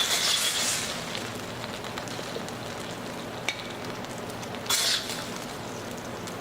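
Sweet-and-sour pork sizzling in a wok of thickened sauce, with a metal spatula scraping the wok twice, at the start and about four and a half seconds in.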